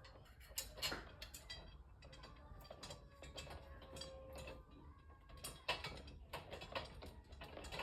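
Irregular metallic clicks and clinks of screws being turned by hand into a steel dresser frame, with light knocks of metal parts.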